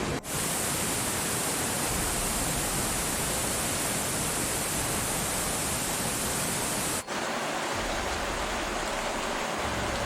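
Steady roar of rushing floodwater, loud and even, broken by two sudden cuts about a quarter second in and about seven seconds in, where the sound shifts slightly in character.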